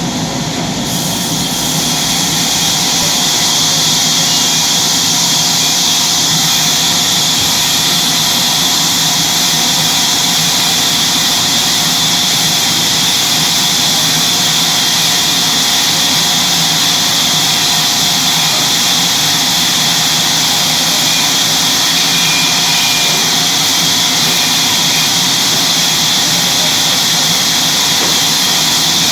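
Sawmill saw cutting wood: a loud, steady machine noise with a strong high hiss that builds over the first few seconds and then holds level.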